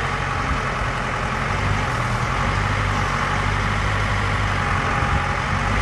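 CASE 580 SK backhoe loader's four-cylinder diesel engine running steadily.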